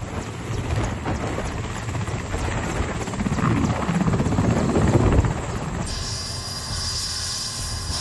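Mi-8 transport helicopter's rotor and turbine engines as it sets down, the rotor noise rising to its loudest about five seconds in. After that a steadier high turbine whine from the helicopter standing on the pad with its rotors turning.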